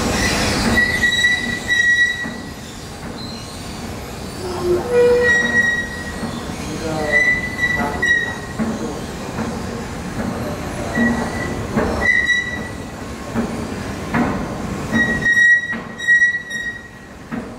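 Escalator running with short high-pitched squeaks that come and go every second or two, over a steady mechanical rumble.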